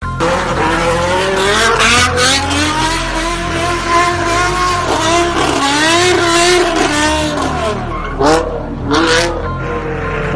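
BMW sedan's engine revving hard with tyres squealing through a burnout drift, its pitch swinging up and down. Two short loud bursts come about a second apart near the end.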